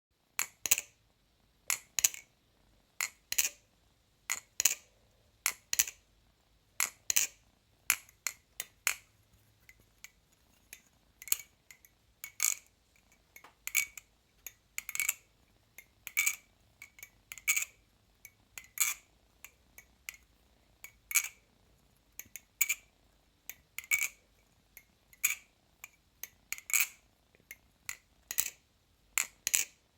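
Balisong (butterfly knife), freshly oiled, being flipped: its handles click sharply against each other and the blade, in single snaps, pairs and quick clusters, one to two a second.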